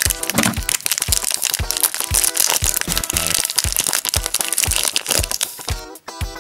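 Upbeat background music with a steady beat, over the crinkling and crackling of a thin clear plastic toy bag being handled and torn open.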